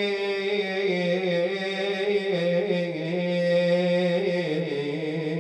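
A man's solo voice chanting an Arabic mourning lament (na'i), drawing out a long, ornamented vowel with a wavering melody that steps down lower about four and a half seconds in.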